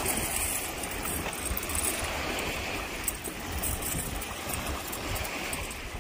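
Wind buffeting the microphone: a steady rushing noise with an uneven low rumble.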